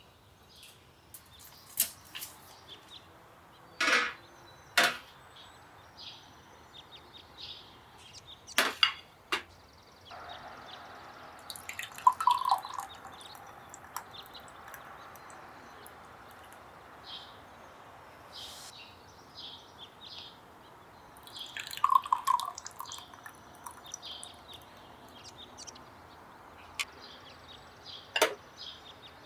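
Scattered sharp clinks and taps of dishes and cutlery, over a faint steady background hiss.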